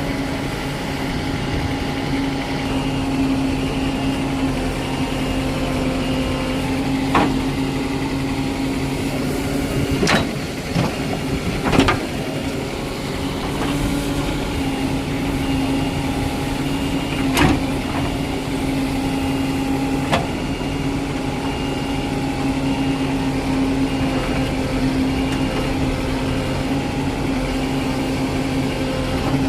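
Diesel engine of heavy machinery running steadily, with about five sharp knocks at irregular intervals.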